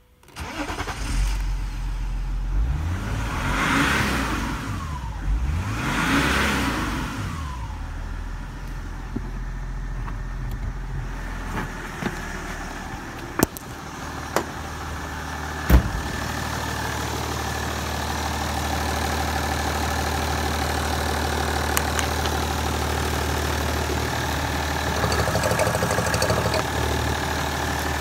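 Opel Omega's Y25DT 2.5-litre six-cylinder turbodiesel starting about half a second in, revved up and back down twice, then settling to a steady idle. A few sharp knocks sound about halfway through over the idle.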